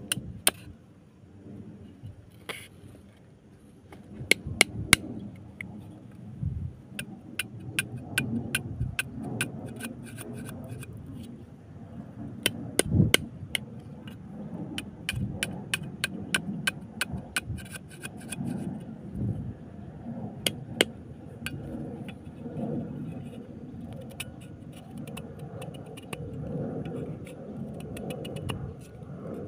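A machete blade knocking and chopping at a fresh bamboo stick on a wooden block, in a long run of sharp, irregular knocks. In the last several seconds it turns to a continuous rasping as the blade shaves and splits the bamboo into slivers.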